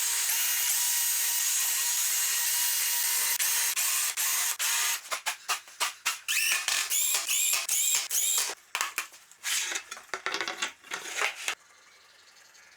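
Power drill pre-drilling, countersinking and driving screws into wood. It runs steadily at a whine for about three seconds, then in many short trigger bursts, each rising in pitch as the motor spins up, and stops near the end.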